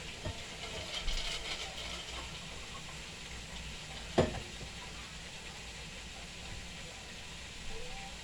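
Chicken frying in hot oil: a low, steady sizzle, with one sharp knock about four seconds in.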